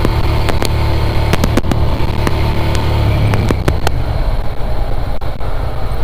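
Wind buffeting the microphone over the steady low running of a 2005 Suzuki SV650S's V-twin engine. The engine note eases about four seconds in.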